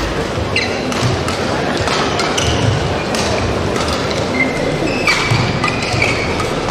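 Badminton rally on an indoor court: sharp racket-on-shuttlecock hits about once a second, short high squeaks of court shoes, over the murmur of a large arena crowd.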